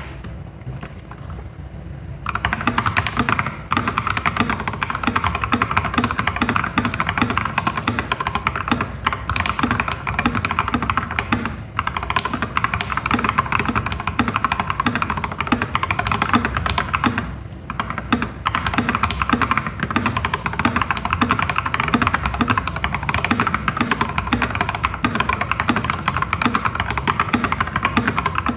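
Mechanical keyboard with lubed and filmed Prevail Epsilon linear switches under OEM-profile keycaps, typed on fast and continuously. The typing starts about two seconds in and breaks off briefly twice.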